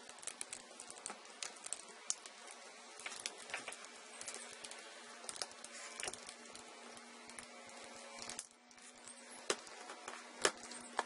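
Plastic screen bezel of a Samsung NP305V5A laptop being forced off by hand: irregular small clicks and snaps as its clips are worked loose, over a faint steady hum.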